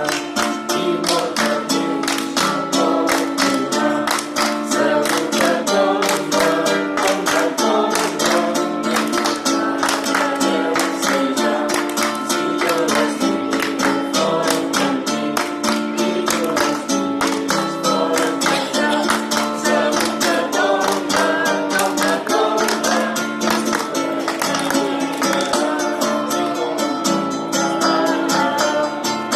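Live folk music: acoustic guitars strummed in a steady, even rhythm, with singing.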